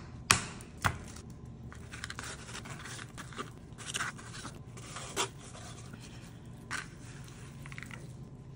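Chef's knife cutting a raw salmon fillet into chunks on a cutting board: a run of small knocks and scrapes as the blade goes through the fish and meets the board, with two sharp knocks in the first second.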